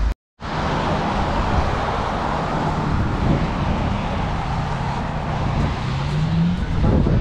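Road traffic on a busy street: steady tyre and engine noise, with one vehicle's engine rising in pitch near the end.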